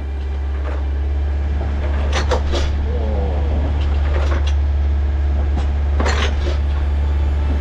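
Boat engine running with a steady low drone, while loose gear knocks and clatters a few times as the yacht rolls in the swell.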